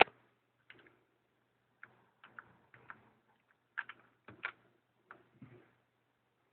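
A sharp click, then about a dozen light, irregular clicks and taps, some in quick pairs, with quiet between them.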